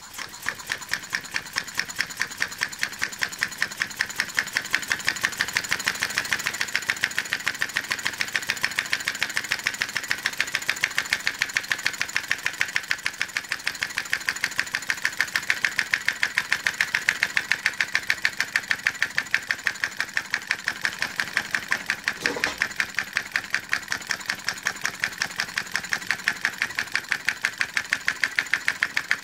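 Homemade syringe compressed-air engine running at a steady speed: a fast, even rhythm of short air puffs and clicks, one with each stroke of the syringe piston, as the jar-lid flywheel spins.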